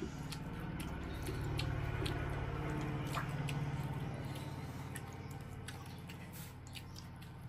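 Close-up eating sounds: scattered small clicks and squishes of fingers working rice and lips smacking. Under them runs a low hum that swells in the middle and fades again.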